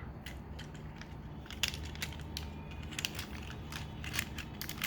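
Plastic parts of a Transformers Masterpiece MP-30 Ratchet figure being handled and moved during transformation: a scatter of small, irregular clicks and taps over a faint steady hum.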